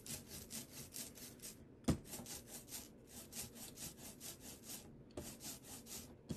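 Rubber brayer rolling back and forth through block-printing ink on a metal tray: a crackly, sticky hiss pulsing several times a second in runs, with a soft knock about two seconds in and again near five seconds. The ink layer is still a little thin, not enough yet to give full coverage on the roller.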